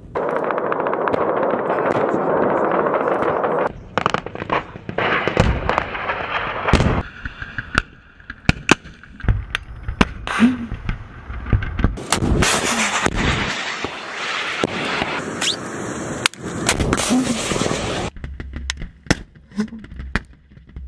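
Military weapons fire: a steady loud rushing noise for the first few seconds, then many sharp gunshots and blasts, some in quick runs, with a launch blast about ten seconds in.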